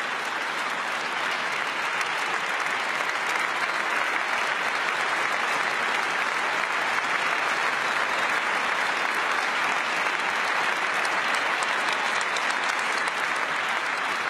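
A large audience applauding, a dense, steady clapping that holds throughout.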